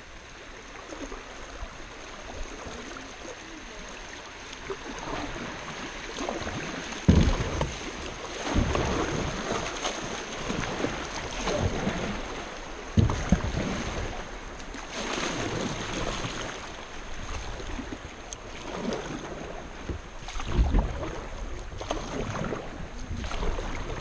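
Kayak paddled through a shallow river riffle: paddle strokes splashing and water rushing around the hull, getting louder about seven seconds in, with irregular gusts of wind thumping on the microphone.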